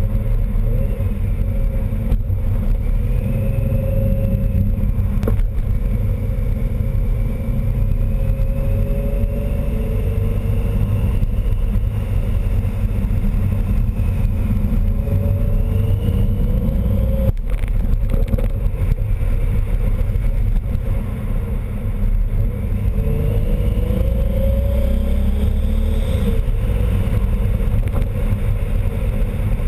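Supercharged R32 engine running, with a whine that slowly rises and falls in pitch over a steady engine drone. The whine turned out to come from a boost leak at the diverter valve, where one of its nuts had backed off.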